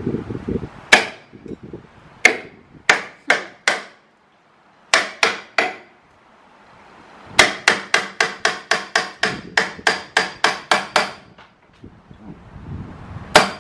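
Hand hammer striking a metal tool held against a metal fitting. There are a few single blows, a pause, three quick blows, then a steady run of blows about four a second, and one more near the end.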